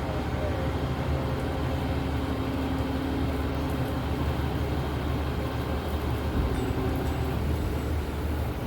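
Boxer 320 mini skid steer's engine running steadily.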